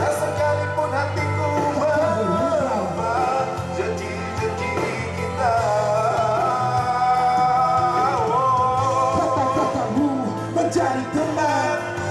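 Live band music with a singer's voice carrying the melody over sustained bass notes.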